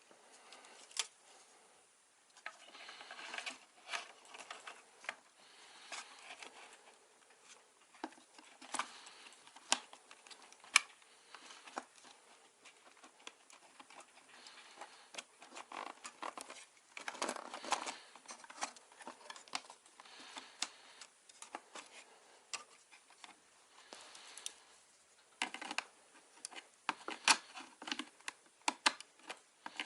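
Hands at work on computer parts and a plywood case: irregular small clicks, taps and rustling of hard plastic and metal pieces, with soft stretches of noise between them.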